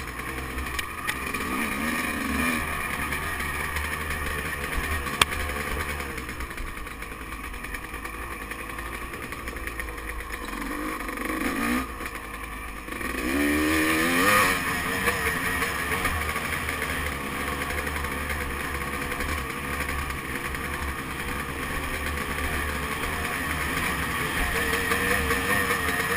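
Dirt bike engine running as the bike rides along a trail. About halfway through it eases off briefly, then revs back up with a rising pitch, and there is one sharp click about five seconds in.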